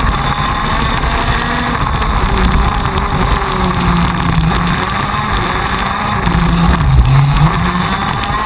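125 cc two-stroke KZ2 shifter kart engine running hard, heard from on board, its pitch rising and falling through the corners, with a dip and pick-up about seven seconds in.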